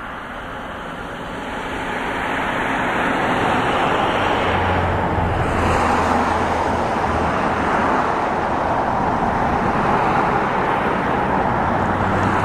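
Steady road traffic roar that swells over the first few seconds and then holds steady, with a faint low hum under it.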